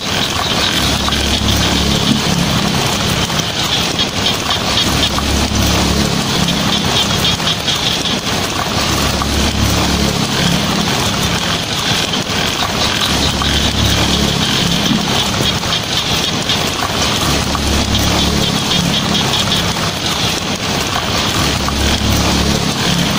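Heavy rain drumming on a tin roof, a dense, steady patter, with a low rumble that comes back about every four seconds.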